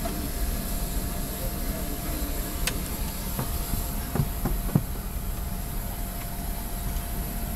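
Steady low roar of an airliner cabin, with a faint constant whine over it. A few light clicks and knocks come in the middle.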